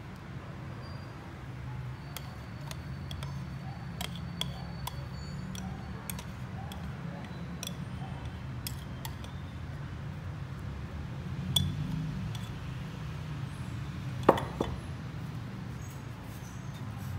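Light clinks and ticks of a wire whisk and a mixing bowl knocking against a stainless steel bowl while egg-yolk batter is poured into whipped egg whites, with one louder knock near the end. A steady low hum runs underneath.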